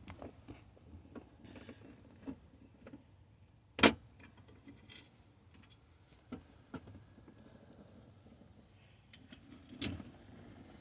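Scattered clicks and clinks of screws and hand tools as a part is screwed into place, with a sharp knock about four seconds in and another near the end.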